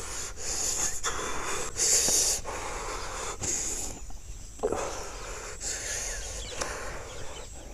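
A bhuva (spirit medium) in a possession trance breathing heavily in a string of hissing breaths, each under a second long and spaced about a second apart, with a quieter spell midway.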